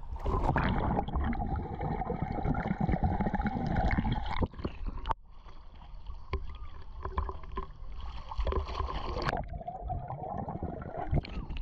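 Water rushing and splashing around an inner tube on a water-park ride, with a sharp break about five seconds in.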